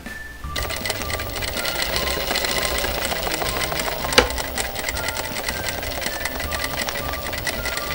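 Sewing machine stitching at a steady fast pace in free-motion quilting, starting up about half a second in. A single sharp click stands out about halfway through.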